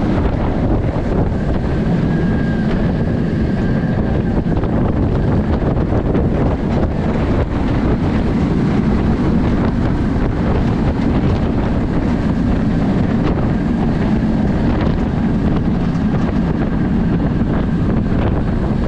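Wind buffeting the microphone of an on-ride camera on a moving Bolliger & Mabillard steel hyper coaster, over a steady rumble of the train running on the track. A faint high whine comes and goes twice.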